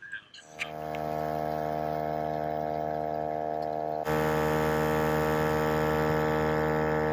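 A steady, even hum with many overtones that fades in near the start and gets louder about four seconds in.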